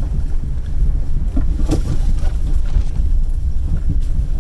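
Vehicle driving slowly over a rough dirt track, heard from inside the cabin as a steady low rumble, with a sharp knock a little under two seconds in.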